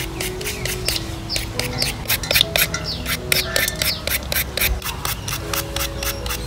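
Hand julienne peeler scraping quick strokes down a peeled green fruit, about six crisp scrapes a second, cutting it into thin shreds. Soft background music plays underneath.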